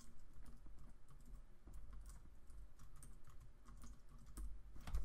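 Typing on a computer keyboard: a faint run of quick, irregular key clicks.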